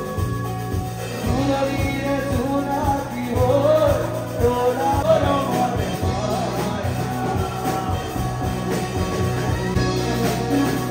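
Live band playing: a man singing into a microphone over electric guitar and keyboard, with a steady beat and bass underneath.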